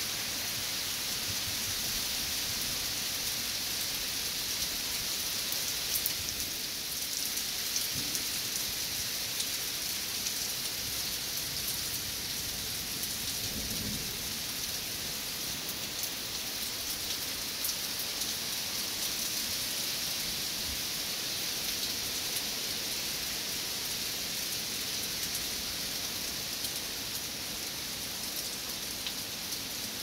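Rain falling steadily, a constant even hiss with scattered sharper ticks of drops striking nearby.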